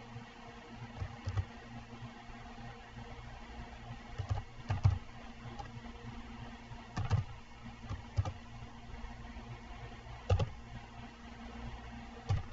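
Keystrokes on a computer keyboard, typed a few at a time with pauses between, over a low steady hum.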